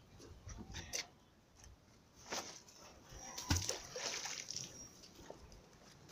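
River water splashing in a few short bursts, the biggest about three and a half seconds in, as a magnet-fishing rope whose magnet is caught on something underwater is tugged.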